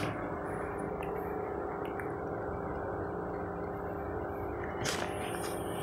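Steady room hum with a few faint constant tones, like a motor or electrical hum, and a brief soft rustle about five seconds in.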